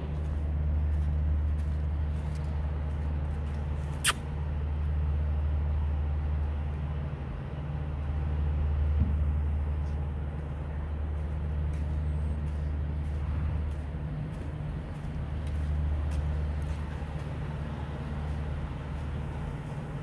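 Steady low rumble that swells and eases every few seconds, with one sharp click about four seconds in.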